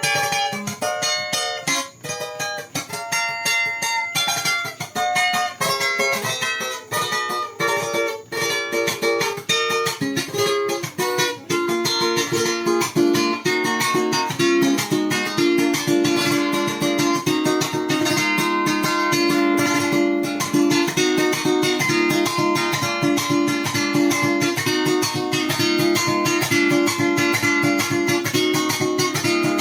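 Electric plucked string instrument of the guitar family being played: picked single notes for about the first ten seconds, then fast, continuous strumming of chords.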